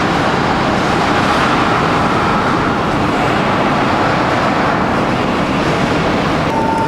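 Loud, steady roar of heavy forge-shop machinery. Near the end it changes abruptly to a steadier hum with a clear high tone.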